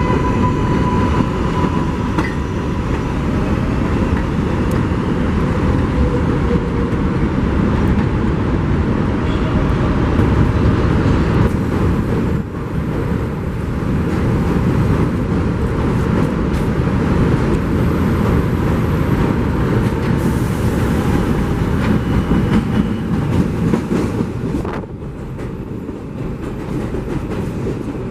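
New York City subway train running through an elevated station: a loud, steady rumble of wheels on rail, easing slightly near the end.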